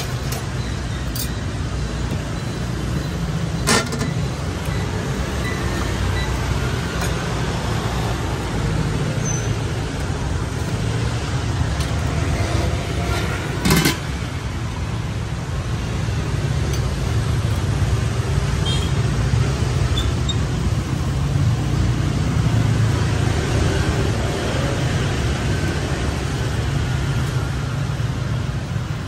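Steady road traffic rumble from the street. Two sharp metal clinks, one about 4 s in and a louder one about 14 s in, from utensils or a pot lid at the cart.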